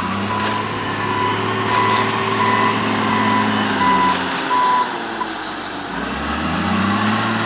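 Truck reversing with its backup alarm beeping about twice a second over the running engine; the beeping stops a little before the five-second mark, the engine settles, and it revs up again about six seconds in.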